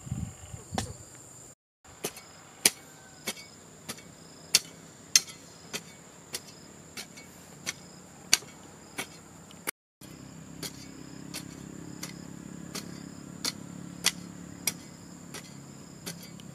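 A hoe striking the soil in a steady rhythm, about three strokes every two seconds, with the high, steady drone of insects behind it. A low hum joins about ten seconds in.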